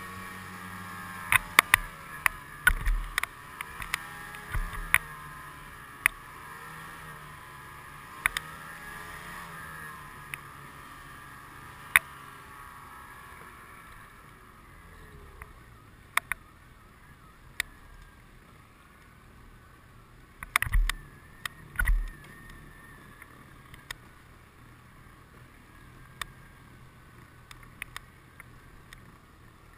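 Snowmobile engine running along a trail, its note dropping off about halfway through, with scattered sharp knocks and two heavy thumps about three-quarters of the way in as the sled jolts over bumps.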